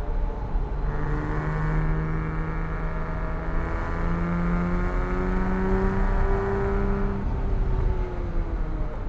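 Porsche 987.1 Cayman S's flat-six engine pulling hard under acceleration, its note climbing. About seven seconds in, the driver lifts off and the note drops away.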